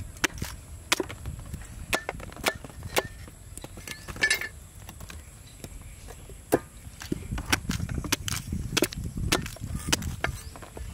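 Cleaver chopping boiled corn cobs into pieces on a round wooden chopping board: a string of sharp, irregular chops, some in quick succession.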